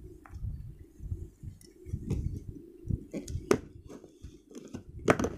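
Hands handling a cardboard box right against the microphone: low rubbing and knocking, with a run of sharper taps and clicks in the second half.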